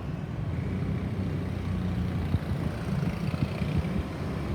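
Low, uneven rumble of road traffic and vehicle engines, with wind buffeting the microphone.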